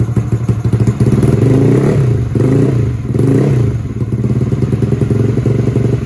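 Bored-up Yamaha X-Ride scooter engine running through a TK Moto tri-oval aftermarket silencer: idling, then revved three times in quick succession from about a second in, then dropping back to idle. The silencer keeps the engine's scream from coming straight out.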